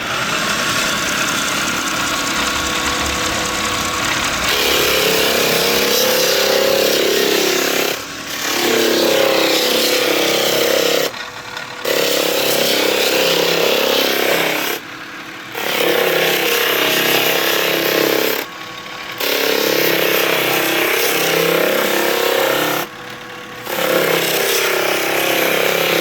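Electric drum floor sander running, its belt-driven drum and dust-recovery fan making a loud steady hum. About four seconds in it gets louder, then dips briefly every three to four seconds.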